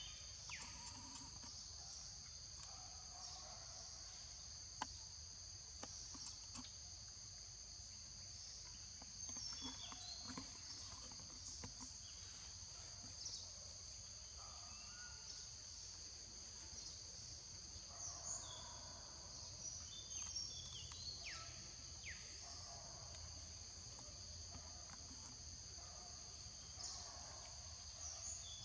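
Steady high-pitched insect chorus, with a few short falling chirps now and then over a low rumble.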